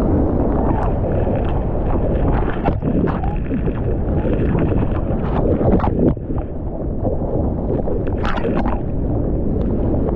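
Rushing whitewater of a steep creek, a loud, low, steady rush broken by several sharp splashes. The loudest splashes come just before six seconds in and again at about eight seconds.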